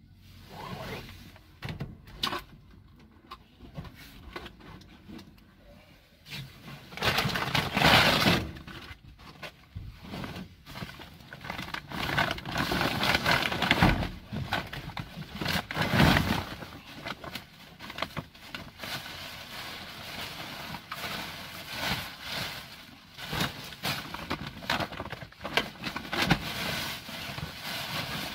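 Rummaging through bags of rubbish by hand: plastic bags rustling and crinkling, with objects knocking and clattering as they are shifted. It is quieter for the first few seconds, with louder bursts of handling about eight and sixteen seconds in.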